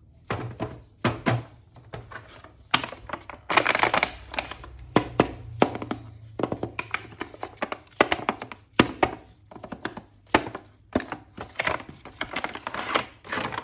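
Unboxing an action figure: a quick, irregular run of clicks, taps and knocks from handling the toy and its packaging, with some rustling of the packaging.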